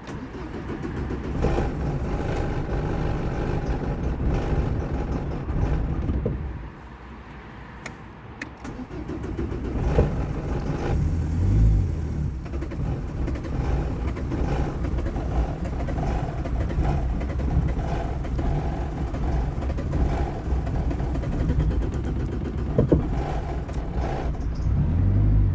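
Car engine being cranked by its starter in two long attempts without catching: about six seconds, a short pause, then about sixteen seconds more, stopping abruptly. The engine won't start.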